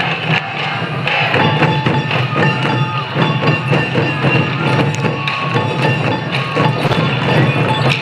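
Sansa Odori parade music: many taiko drums beating in a quick dense rhythm, with short piping notes of bamboo flutes above them.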